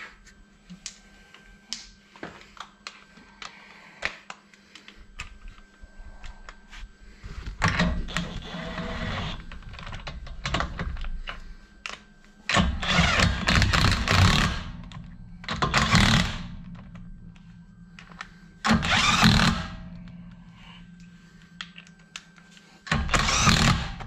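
Scattered light clicks and knocks, then five bursts of rapid clicking, each a second or two long, from a wrench running in and tightening the wheel bolts as the rear wheel is refitted.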